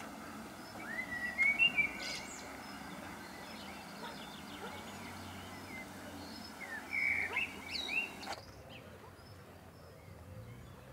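Small birds chirping and trilling over a steady background hiss, with louder runs of calls about one to two seconds in and again around seven to eight seconds. About eight seconds in the background turns quieter and duller, with faint chirps still heard.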